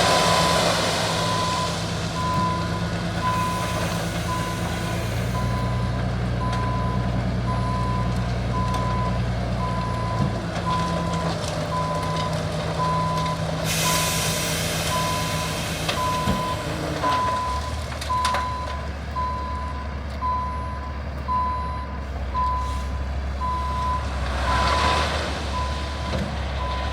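A heavy vehicle's reversing alarm beeping at a steady pitch about once a second, over its engine running low, the engine note shifting a couple of times.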